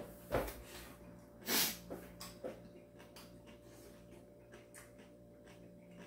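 A man taking two loud breaths through the mouth while eating hot ramen, the second, about a second and a half in, the louder. After them come faint chewing and mouth clicks.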